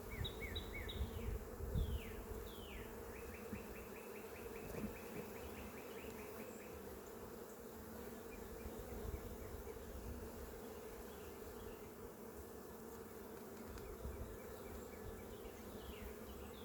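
Honeybees buzzing steadily around an open hive, a continuous hum of many wings.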